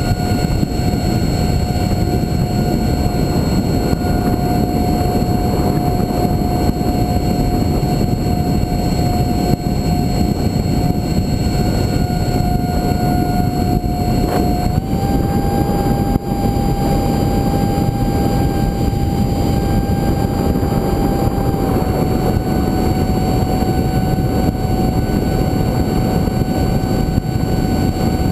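Electric ducted fan of an FF-22 foam RC jet whining steadily in flight, heard from the onboard GoPro over a rush of wind noise. Its pitch steps up slightly about fifteen seconds in and drops back about seven seconds later.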